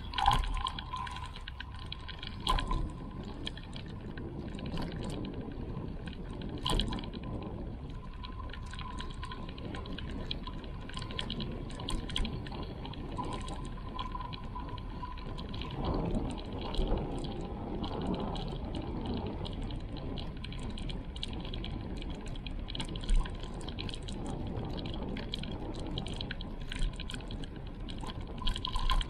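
Small creek trickling steadily, with many small splashes and drips.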